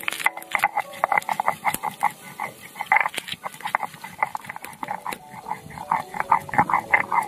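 Stone roller rubbed back and forth over a flat grinding stone (sil-nora), crushing ginger and green chillies into a paste: a fast rasping rhythm of strokes, about four a second.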